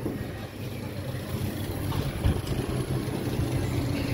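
Steady low rumble and rushing air noise from riding a flying-scooters-type swing ride.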